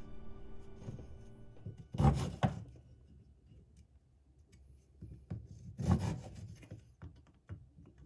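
Saw scraping through wood in a few short, separate strokes, about two seconds in and again near six seconds, with quiet stretches between them.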